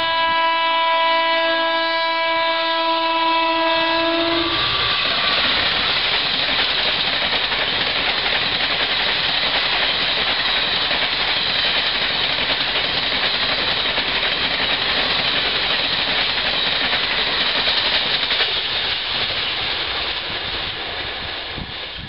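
Express train's multi-tone horn held in one long blast for about the first four and a half seconds as it approaches, then the train passing at speed: a steady loud rush of wheels on rail and coaches, easing off near the end.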